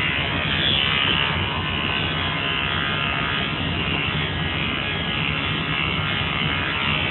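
Electric dog grooming clippers buzzing steadily as they trim a small dog's coat around its head and neck.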